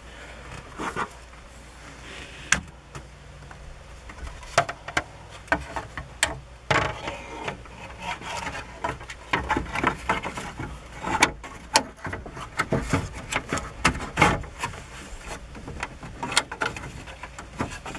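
Plastic dash trim bezel of a 2006 Ford F-150 being pressed back into place around the instrument cluster by hand: irregular clicks, knocks and short rubbing scrapes of plastic on plastic, busier in the second half.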